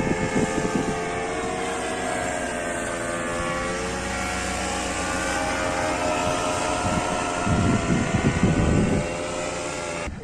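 A small engine running steadily, its pitch wavering slightly, with wind buffeting the microphone at the start and again for a second or two near the end.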